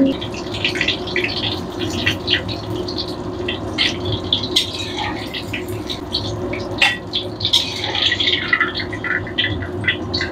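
Tofu deep-frying in hot oil in a steel wok: a steady sizzle full of quick crackles and pops, over a steady low hum.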